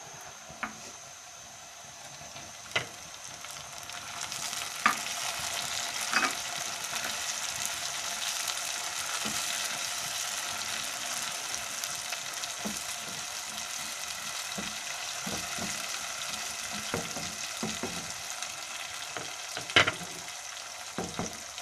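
Onions and tomatoes sizzling in hot oil in a kadai, stirred with a plastic slotted spatula that knocks against the pan a few times. The sizzle grows louder about four seconds in.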